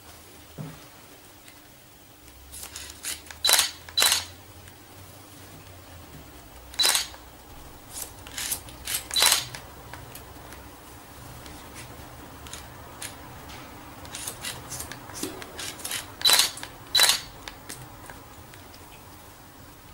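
Hairdressing scissors snipping through wet hair: sharp snips at irregular intervals, several in close pairs, with quieter clicks in between.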